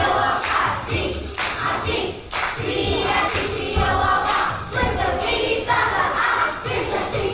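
A group of children singing a lively song together, with accompanying music that has a steady low beat.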